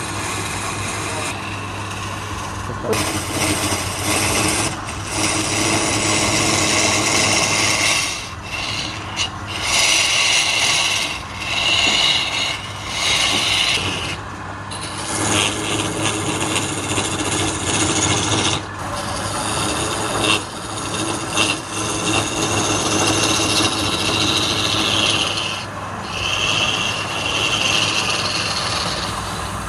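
Turning chisel cutting a spinning wooden vase on a lathe: a continuous scraping hiss of the cut, broken by brief dips several times, over the lathe motor's steady hum.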